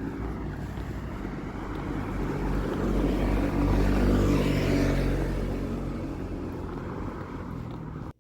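A motor vehicle passing by: a steady engine hum and road noise that grows louder to a peak about halfway through, then fades, ending abruptly.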